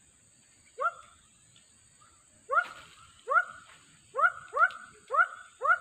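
An animal calling: seven short, sharp calls, each rising quickly in pitch, coming faster in the second half.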